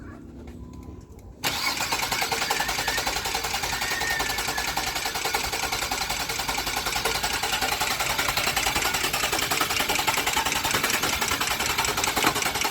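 A 2000 Nissan Maxima's starter cranks the engine steadily with a fast, even rhythm, beginning suddenly about a second and a half in. The engine turns over but doesn't fire, the sign of a car that cranks but won't start.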